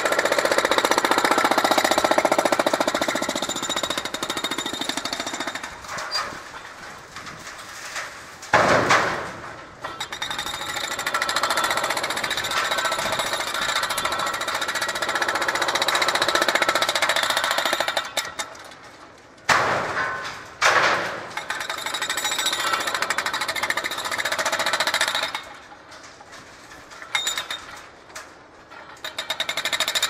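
Hydraulic breaker on a remote-controlled demolition machine hammering concrete in rapid strokes. It works in long runs that stop and restart a few times, with several louder single knocks.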